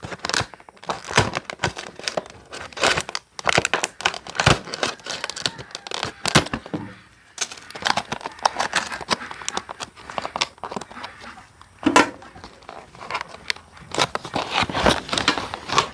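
Stiff plastic blister packaging being crinkled, bent and torn at by hand: irregular crackling and tearing as the package resists opening.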